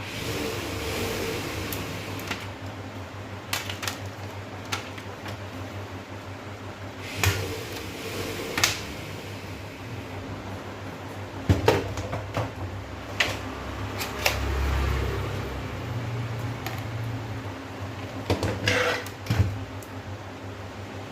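Scattered clicks, knocks and scraping of hands working on the opened LED TV's panel and backlight parts, over a steady low hum.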